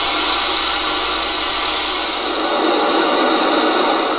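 Old portable TV's speaker hissing loudly with steady static, its volume turned all the way up and no station to receive: the set has powered up and its sound stage is working.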